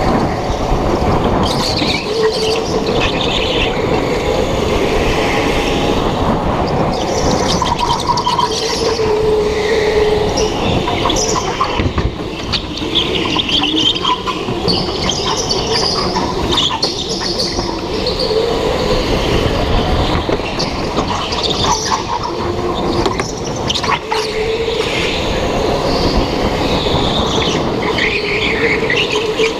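Indoor rental go-kart driven hard around the track, heard from on board. Its motor pitch rises and falls through the corners, over a steady rumble, with short squeals that fit the tyres sliding in the turns.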